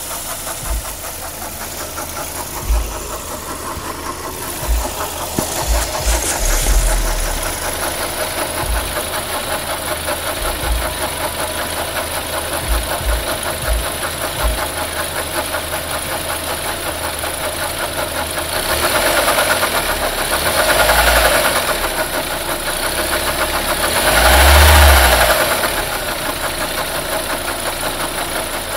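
Suzuki Reno car engine idling with a steady, rapid knock. It is revved up briefly twice in the second half. The cause of the knock is unknown.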